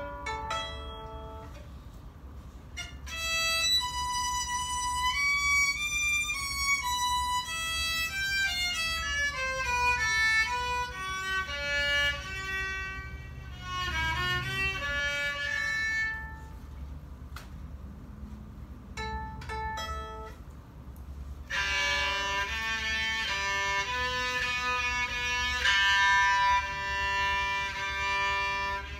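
Old Japanese electric violin played unaccompanied: a few plucked notes, then bowed single notes with slides up and down in pitch. After a quieter stretch with a couple of plucks, louder, brighter bowing comes in about two-thirds of the way through.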